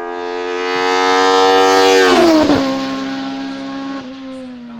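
Hillclimb race car engine at high revs passing close by. It gets louder to a peak about two seconds in, then its pitch drops sharply as it goes past and it fades away up the course.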